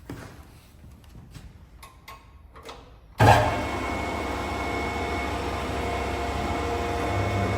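Woodfast PT410a planer thicknesser starting up: a few faint clicks, then about three seconds in the motor and cutter block come on abruptly and run steadily with a steady hum and tone, growing a little louder near the end.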